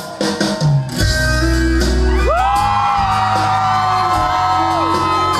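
Live band in a large hall: a few drum hits, then from about a second in the full band plays with strong bass, drums and guitars, and long held high notes come in above. The crowd shouts and whoops over the music.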